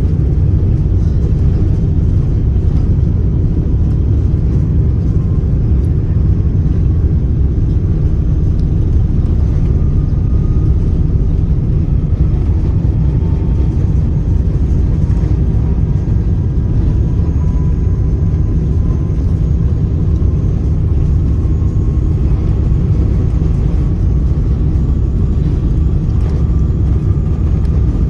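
Airbus A380-800's Rolls-Royce Trent 900 jet engines during the takeoff: a loud, steady low rumble with a faint whine slowly rising in pitch.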